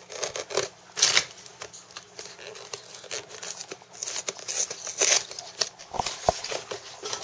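Cardboard and plastic packaging being torn and handled by hand: irregular rustling, scraping and crinkling, with two short knocks near the end.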